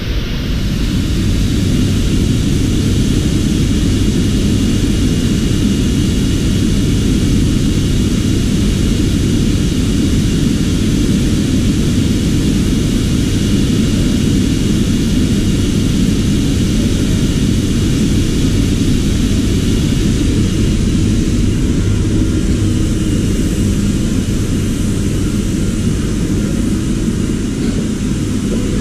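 A machine running steadily, its noise sitting low, with a faint constant high whine.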